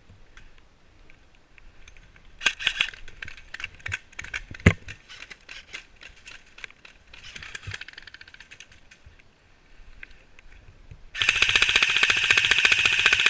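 Airsoft electric gun firing a long full-auto burst of about two and a half seconds near the end, a fast even stream of shots. Earlier there is a scatter of sharp clicks and knocks, with one louder knock about halfway through.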